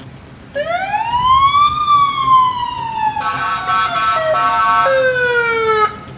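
A siren winds up in pitch, then slowly falls. A steady, many-toned horn-like blast sounds over it for about a second and a half in the middle. The siren cuts off abruptly near the end.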